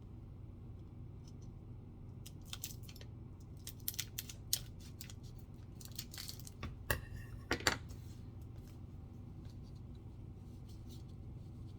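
A trading-card pack being opened and its cards handled by hand: scattered crinkles of the wrapper, short rips and small clicks, with the busiest handling a little past the middle.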